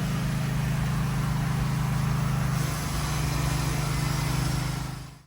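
A motor running steadily with a low, even hum, fading out near the end.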